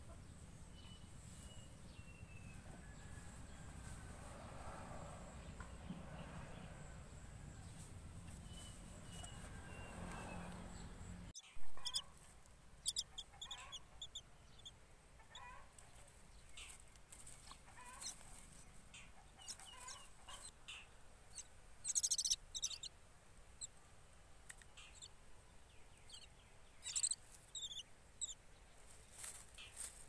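Common myna chick giving short, high begging calls in repeated bursts. In the first third there are only a few faint gliding whistles over a steady outdoor background.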